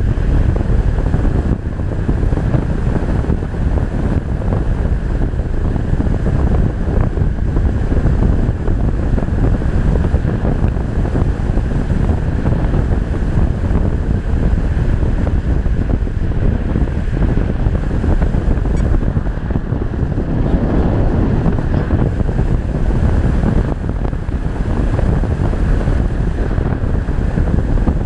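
Loud, steady rush of wind buffeting the microphone of a GoPro on a model glider in flight, with no motor heard.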